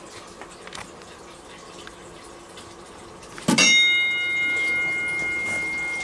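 Gamewell 120-volt single-stroke fire alarm chime struck once about three and a half seconds in, its bright tone ringing on and slowly fading. Before the strike, only faint room tone with a few light ticks.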